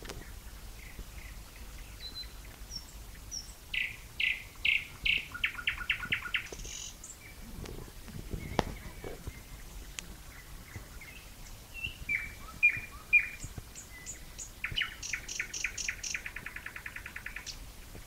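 Nightingale singing in separate phrases of loud repeated notes and fast trills, with pauses between them. A single sharp click comes near the middle.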